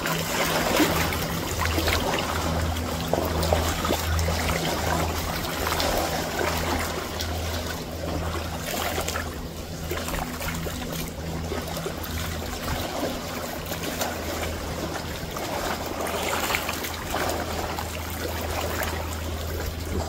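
Small waves lapping at the lagoon shore, a steady wash that swells and eases, with a low steady hum underneath.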